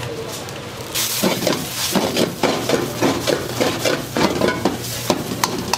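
Crab fried rice being stir-fried in a pan, with sizzling. About a second in, it starts being scraped and tossed in quick repeated strokes, about two a second.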